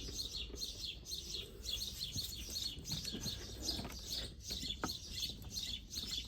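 Small birds chirping rapidly and continuously in the background, with a faint click near the end.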